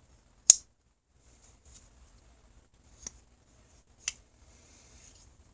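Blades of a Rough Ryder Barlow pocket knife snapping into place against the backspring: a sharp click about half a second in, then two fainter clicks around three and four seconds in, with faint handling sounds between.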